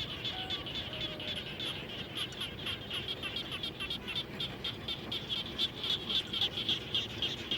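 Chorus of many frogs calling after rain: a dense run of short, rapid, high-pitched calls overlapping one another, growing a little louder in the second half.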